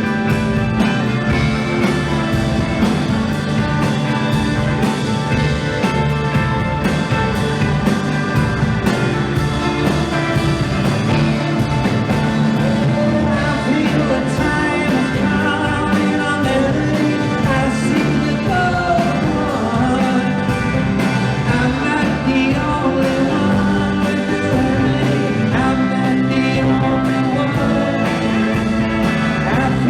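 Psychedelic rock band playing live, with a sung vocal over electric guitars and a drum kit keeping a steady beat.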